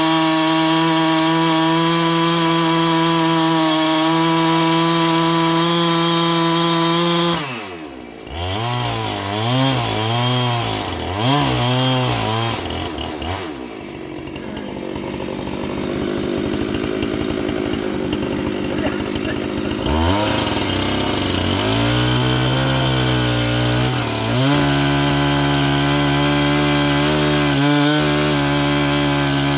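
Two-stroke chainsaw running at high revs. About seven seconds in the throttle is let off, the engine is blipped up and down several times and falls to a low run. Around twenty seconds in it revs back up to a steady high pitch.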